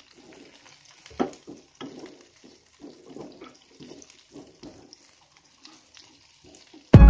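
Faint, irregular splashing of water and light clinks, with one louder knock about a second in.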